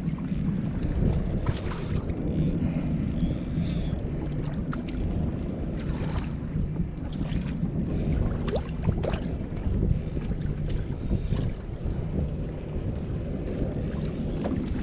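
Wind buffeting the microphone over water lapping against a fishing kayak's hull on the open sea, a steady low rumble with scattered small clicks.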